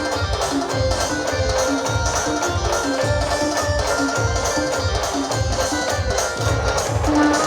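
A band party playing Khandeshi folk music, loud, with a heavy bass drum beating about twice a second under held melody notes.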